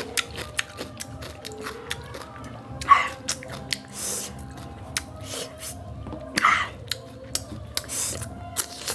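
Close-up eating sounds: chewing and crunching, with many short sharp clicks and a few longer wet, hissy mouth noises, as a person eats raw cucumber and egg bhurji.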